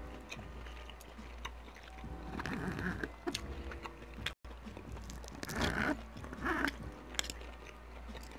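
Close-miked chewing and wet mouth sounds of a person eating, coming in several short bursts, with a few sharp clicks of a metal fork and knife against the plate. The sound drops out completely for a split second a little under halfway through.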